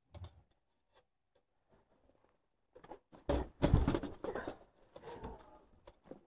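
Close handling noise: scattered clicks and rustles, then a cluster of knocks, thumps and scuffs about three seconds in, as a person moves about with a lantern and light close to the microphone.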